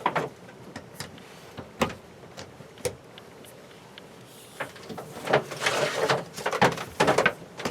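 Handling noises: a few scattered clicks and knocks, then a busier stretch of scraping and rustling about two-thirds of the way through.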